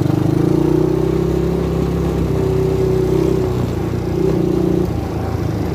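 250cc ATV engine running under throttle while riding; its pitch rises slightly in the first second, then holds steady.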